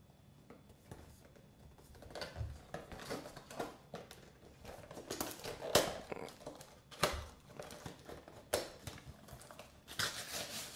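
Thin cardboard retail box being torn open by hand. Irregular crinkling, tearing and scraping of the card begin about two seconds in, with a few sharp snaps.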